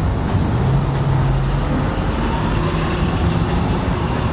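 Freight train's flatcars rolling across an elevated railway bridge, a steady low rumble mixed with a steady engine hum.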